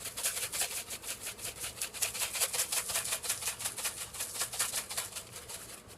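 A seasoning shaker shaken over grilling steaks in quick, even strokes, about five a second, stopping shortly before the end.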